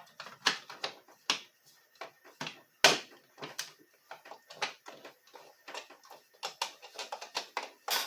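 Plastic housing parts of a Black & Decker auto clamp being handled and fitted together: irregular clicks and knocks, with one louder knock about three seconds in.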